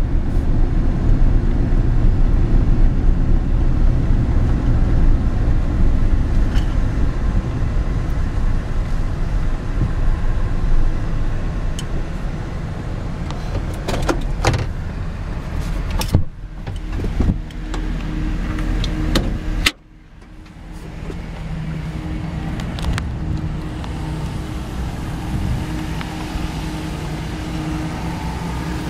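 Pickup truck engine and road rumble heard from inside the cab as it drives slowly. About two-thirds through, a few clicks and a door thump are followed by the engine idling steadily, heard from outside the truck.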